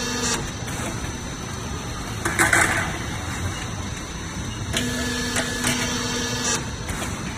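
Lock-seam pipe forming machine running through its repeating cycle over a steady mechanical background. A steady hum ends with a click just after the start, a loud noisy burst comes about two and a half seconds in, and the hum starts again with a click at about five seconds and stops with another near six and a half.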